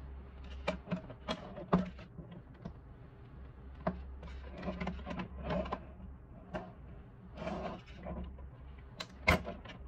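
Plastic bottom cover of a Xiaomi Mijia humidifier being worked off its base by hand: a string of sharp plastic clicks and knocks with short scraping rubs between. The loudest knocks come about two seconds in and near the end.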